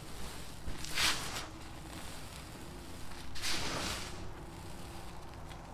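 Dry sand and charcoal crumbling and spilling under a hand: two bursts of trickling, crunchy grains, about a second in and again about three and a half seconds in.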